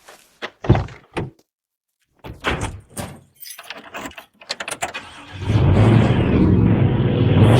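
Car sound effects: short clicks and rattles like a door and jangling keys, then about five seconds in a car engine starts and runs steadily with a strong low hum.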